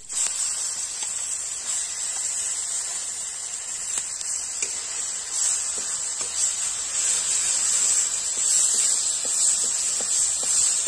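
Ground spice masala frying in hot oil in a steel kadhai, a steady sizzle as a steel spatula stirs it, with faint scrapes of the spatula.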